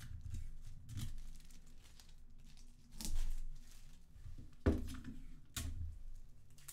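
Clear tape pulled and torn off a desktop tape dispenser and tissue pattern paper crinkling as it is pressed down, in several short separate bursts. The loudest comes about four and a half seconds in, with a dull thump.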